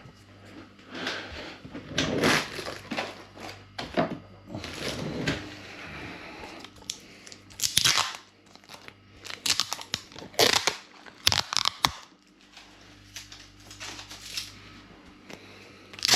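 Adhesive tape being handled: pulled, torn and crumpled in a string of irregular tearing and crinkling noises, with small handling knocks.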